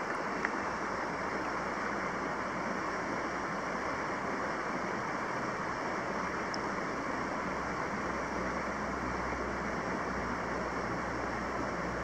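Steady rush of flowing river water, with a single faint click about half a second in and a low rumble growing near the end.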